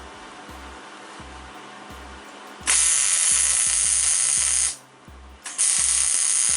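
Electric arc welder running in two bursts, the first about two seconds long and the second about a second long, with a steady crackling hiss. A nut is being welded onto a snapped stud to extract it.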